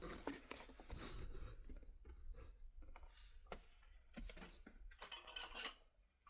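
Faint scattered clicks and light knocks of hands handling tools and parts, over a low hum.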